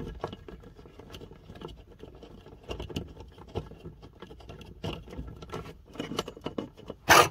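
Small plastic clicks and rattles of hands fitting wires and connectors onto a caravan TV and 12 V wall socket, with a louder handling knock near the end.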